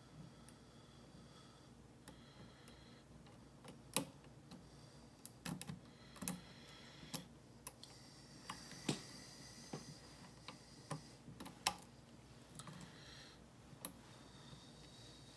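Small, irregular clicks and ticks of a hook pick and tension tool working the pin stack of a Black Dolphin Joker lock, about a dozen, with sharper ones about four seconds in and near twelve seconds. The lock is held in a false set while spool pins are being picked.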